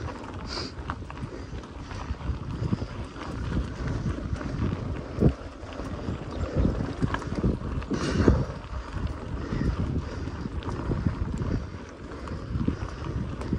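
Wind buffeting the microphone over the rumble of bicycle tyres rolling on a dirt trail, with frequent small knocks and rattles from the bike over bumps.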